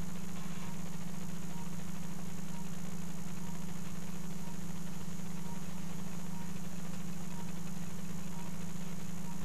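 Steady low hum of operating-room equipment, with faint short beeps repeating about once a second.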